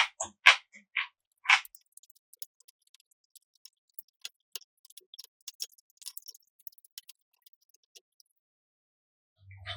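Close-miked chewing of crisp, juicy food: four crunchy chews about half a second apart, then quieter wet mouth clicks and smacks.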